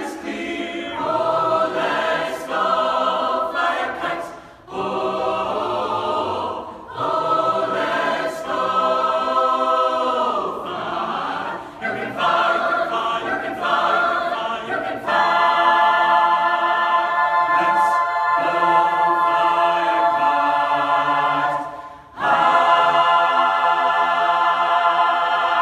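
Chamber choir singing in harmony: sung phrases with short breaks, then long held chords in the last third, one held chord giving way to another near the end.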